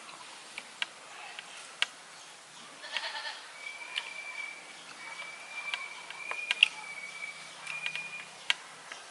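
Goats bleating hoarsely, with one rasping bleat about three seconds in. A thin, steady high-pitched tone runs for several seconds after it, and a few sharp clicks are scattered through.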